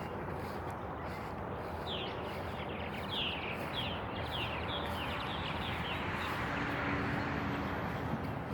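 Wild birds calling outdoors: a quick run of short, falling, high chirps over a steady background hiss.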